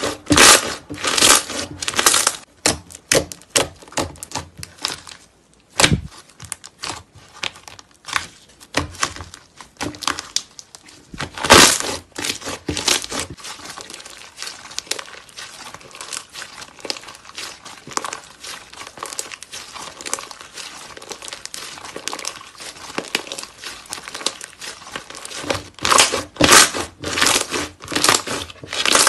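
Thick slime being stretched, folded and squeezed by hand, giving a dense run of small irregular clicks and pops that come in louder bunches as it is pulled apart. There is one dull thump about six seconds in.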